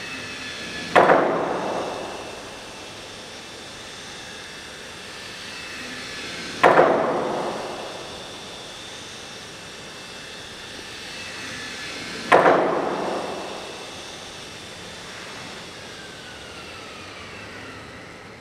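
A long saw blade mounted on a suspended wooden beam, struck by a pair of yarn-headed mallets three times, about every five and a half seconds. Each strike is a quick double hit followed by a ringing tone that dies away over a couple of seconds.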